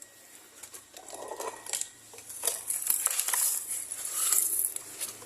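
Small plastic toy parts clicking and rattling as a toy sand truck is taken apart by hand, with a stretch of gritty hiss from about two and a half seconds in until near the end.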